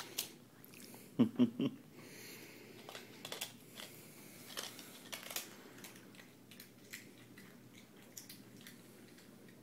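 A cat crunching and chewing a Pringles potato chip: a scatter of small sharp crunches and clicks, with a brief louder cluster about a second in.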